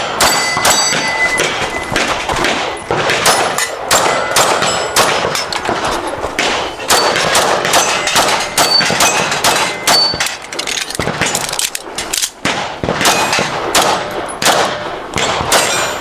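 Pistol fired in a long string of shots at a practical-shooting stage, with steel targets ringing on hits between the shots. There is a brief lull about twelve seconds in.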